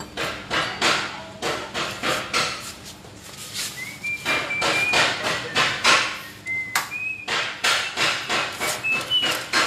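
A run of sharp knocks, like metal being hammered, about three a second with a short pause midway. A few short high squeaks come in the middle and near the end.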